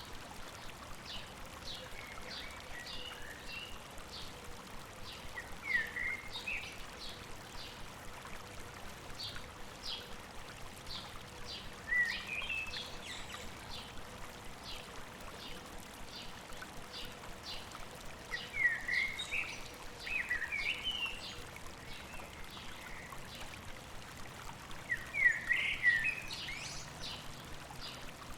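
Flowing stream with birds singing over it: a regular series of short, high chirps, and louder warbling bird phrases every few seconds, the loudest near the end.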